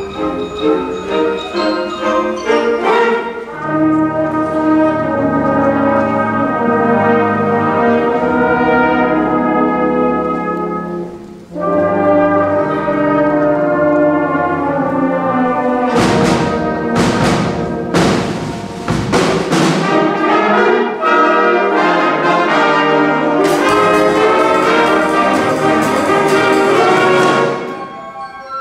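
A school concert band plays sustained woodwind and brass chords. About 16 seconds in, cymbal crashes and drum hits come in with loud full-band chords. The music drops to softer playing near the end.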